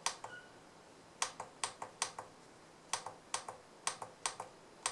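Plastic keypad button on a JINHAN JDS2023 handheld oscilloscope pressed about eight times, each press a quick double click of press and release, stepping through the backlight brightness levels.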